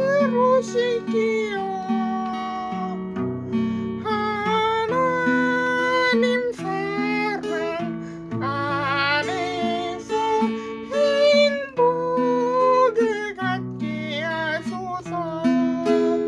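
A singer singing a slow Korean praise song, with wavering held notes, over acoustic guitar chords.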